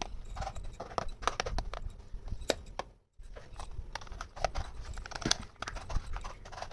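Small plastic toy kitchen pieces being handled, with irregular light clicks and taps as they are set down and knocked together. The clicks stop for a moment about three seconds in, then carry on.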